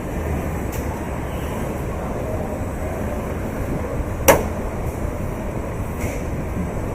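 Steady machine hum of a car assembly line, with one sharp clank a little past the middle.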